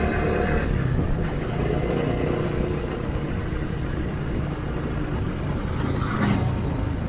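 Steady engine and road rumble from a moving motor vehicle, with a brief hiss about six seconds in.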